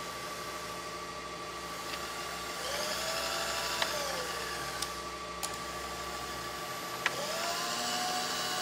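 Milling machine's longitudinal servo power feed driving the table: its motor whine rises, holds for about a second, then winds down, and starts up again about seven seconds in. A faint steady hum and a few light clicks run underneath.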